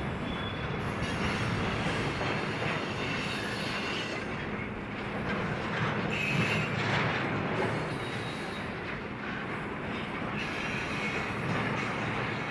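Union Pacific intermodal freight train rolling past on the rails: a steady rumble of wheels and cars, with faint high wheel squeals now and then.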